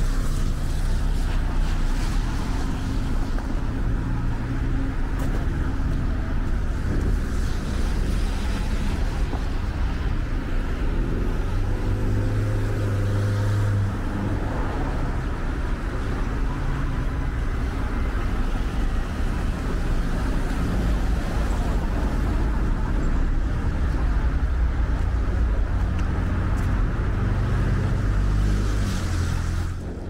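Road traffic: a steady engine rumble from passing vehicles, with one engine louder about halfway through.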